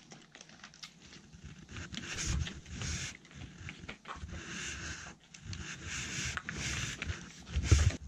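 Pembroke Welsh corgi panting and sniffing in short breathy spells while licking and chewing treats from a hand, with small clicks and scuffs. A thump sounds near the end.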